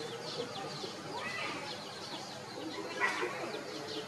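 Chicks peeping: a steady run of short, high, falling chirps, with a louder call about a second in and another near three seconds.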